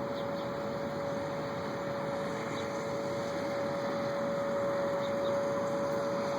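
Steady, unexplained hum: one constant mid-pitched tone, a fainter tone just below it, and an even rushing wash of noise underneath, with no change in level or pitch.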